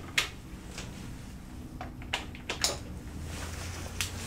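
A few short, sharp clicks and knocks of handling at a repair bench, about five in four seconds, over a steady low hum.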